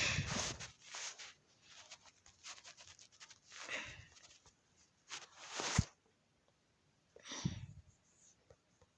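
Several short bursts of rustling or scraping handling noise, with scattered faint clicks between them.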